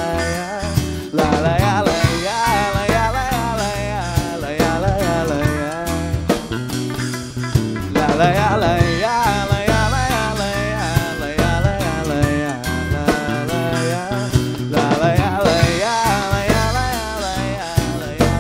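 A live rock band playing: acoustic guitar, electric bass and drum kit, with a wavering melody line over a steady beat.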